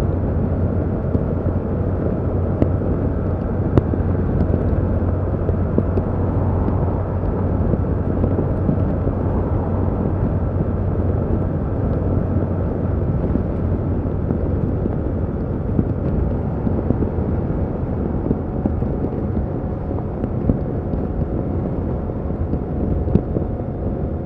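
A 2021 Yamaha MT-07's 689 cc 270° parallel-twin engine running steadily through its stock exhaust while the bike is ridden at an even pace, with no big revs or gear changes.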